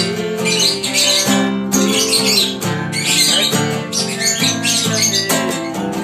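Acoustic guitar being strummed while a pet lovebird calls along over it in quick, irregular chirps, set off by the guitar.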